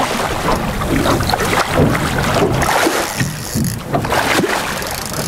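Wind buffeting the microphone over water sloshing and splashing against the side of a boat.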